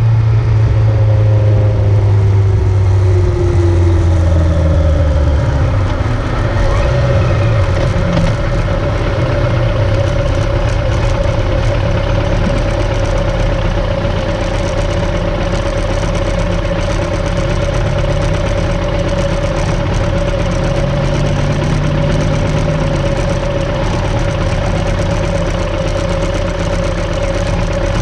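A vehicle's engine running, its pitch falling over the first several seconds and then holding a steady note.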